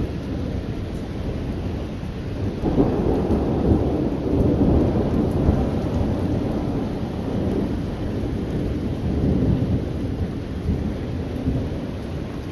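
Rolling thunder from a nearby lightning storm: a low, continuous rumble that swells suddenly about two and a half seconds in and keeps rolling in waves before easing near the end.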